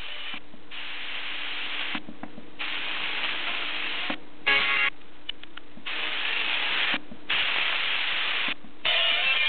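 FM radio static: a steady hiss from the Sony XDR-F1HD tuner between stations as it is tuned across the band, cutting out briefly each time the frequency steps. About halfway through, a weak station breaks through for half a second. Near the end, a strong station comes in clearly.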